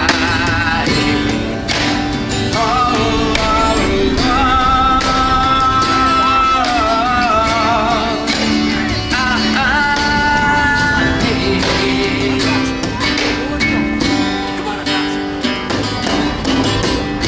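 Music: a song with a wavering melody line sung with vibrato over plucked guitar and a steady beat.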